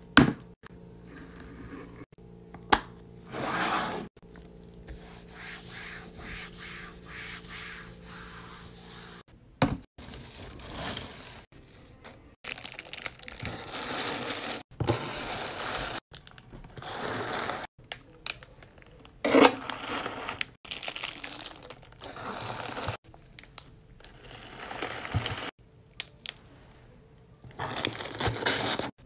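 Plastic candy bags and shredded paper filler crinkling and rustling in irregular bursts as gloved hands pack them into a cardboard box.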